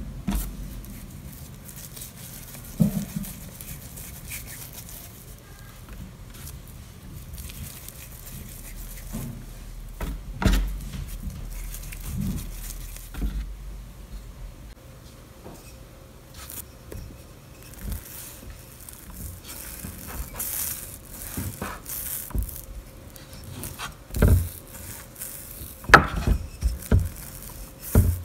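Hands shaping soft yeast dough into balls and setting them down on a wooden board: scattered soft taps and knocks, busier and louder near the end.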